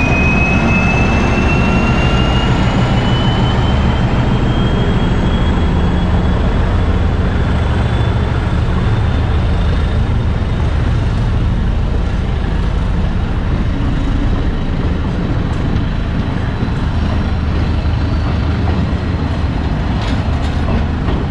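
Diesel locomotive running loudly with a deep, steady engine rumble, and a high whine that rises slowly in pitch over about ten seconds, then fades. A few sharp clicks come near the end.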